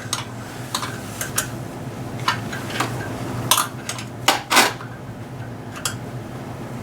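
Metal tools and bolts clinking and knocking against each other in a dozen or so separate sharp clicks, the loudest a little past halfway, over a steady low hum.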